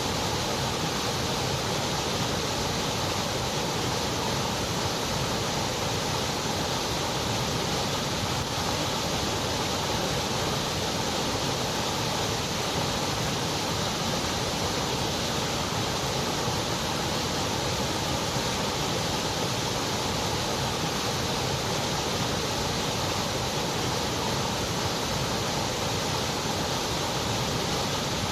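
Steady, unchanging white noise: an even hiss with no rhythm, tones or breaks.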